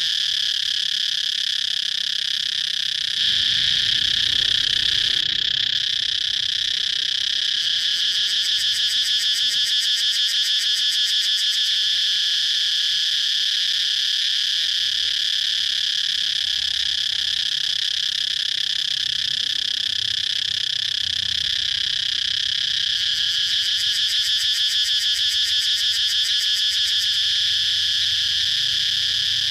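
Cicadas chirping in a continuous shrill drone, with a very fast pulsing that comes and goes in the upper range.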